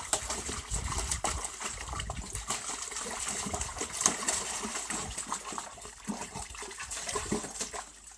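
Vizsla puppy splashing about in a plastic tub of water, head and front legs dunked in, making irregular splashing and sloshing.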